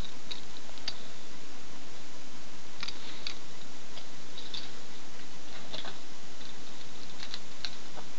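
Scattered light clicks and ticks, a few seconds apart, over a steady hiss, like small hard objects being handled.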